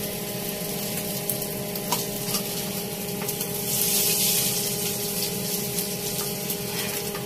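Hot oil sizzling steadily on a tawa around shallow-fried nivti (mudskipper) fish, swelling louder for about a second midway, with a few light clicks and a faint steady hum underneath.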